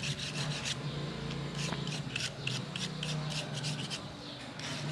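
A small brush scrubbing the dirty circuit board of a TV remote control, a quick run of repeated scratchy bristle strokes as dust and grime are brushed off.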